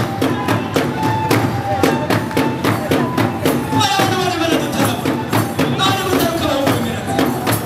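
Rwandan traditional dance music: a fast, steady beat of drums and hand claps under group singing, with a high falling call about four seconds in.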